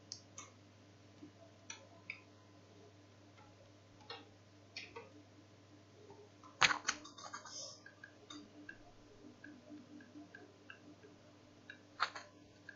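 Scattered clicks of a computer keyboard and mouse as the page source is searched, with a loud cluster of clicks about seven seconds in and another sharp click near the end, over a faint steady hum.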